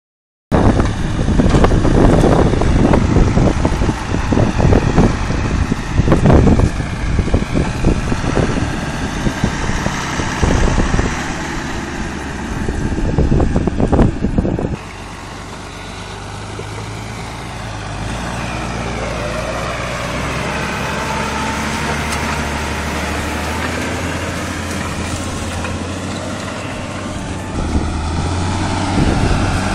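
Renault 155.54 tractor's turbocharged diesel engine running while it pulls a reversible plough through a field. Loud and uneven in the first half; after an abrupt change about halfway it settles into a steadier note with its pitch rising and falling, and grows louder again near the end.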